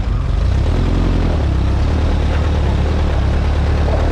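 Engine of an open dune buggy running steadily as it drives over sand, a loud low drone that settles to an even level about half a second in.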